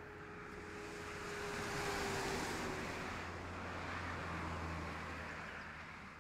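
A car driving past on an asphalt road: tyre and engine noise swells, peaks about two seconds in and again around four and a half seconds, then fades away.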